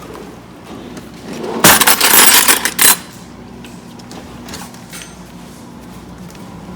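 A loud rattling clatter, made of many close clicks, starting about one and a half seconds in and lasting just over a second.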